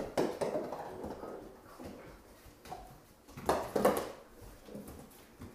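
A puppy playing with a ball on a bare plywood floor: scattered short knocks and scuffles, with two louder short sounds close together about three and a half seconds in.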